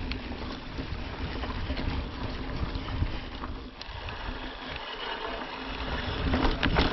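Mountain bike rolling over a dirt trail: steady tyre and trail noise with wind on the microphone, and scattered clicks and rattles from the bike.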